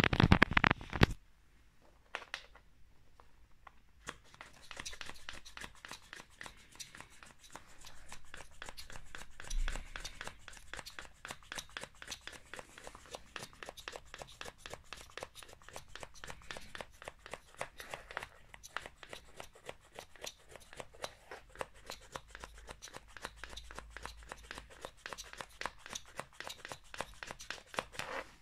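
LEGO pneumatic inline-three engine running on air from a hand-worked LEGO pump: a rapid, even clatter of plastic pistons and valves clicking. It starts about four seconds in, after a brief loud noise at the very start.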